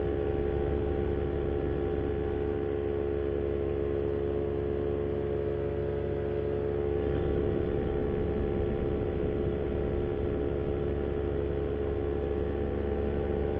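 Moster 185 single-cylinder two-stroke paramotor engine and propeller running steadily at cruise power in flight, a constant buzzing drone.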